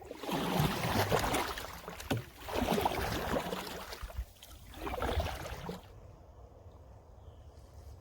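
Three rushing bursts of water noise from a boat on the river, about two seconds apart; it goes quieter about six seconds in.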